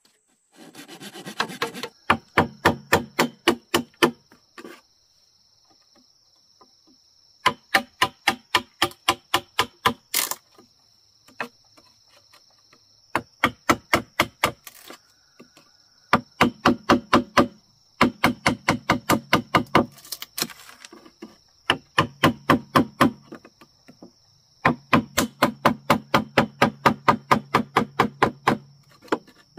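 Rapid, evenly spaced knocks of a tool striking bamboo, about seven a second, in runs of one to three seconds with short pauses between.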